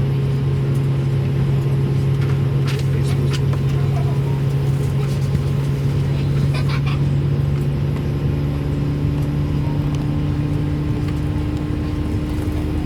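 Cabin noise inside an Airbus A220-300: a steady drone of the engines and aircraft systems, with a low hum and a higher tone that joins about eight seconds in. A few faint clicks sound from the cabin.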